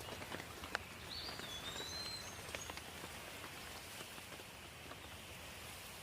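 Gentle, steady rain with scattered single drops ticking close by, one sharper drip under a second in. A bird gives a few short chirps about one to two seconds in.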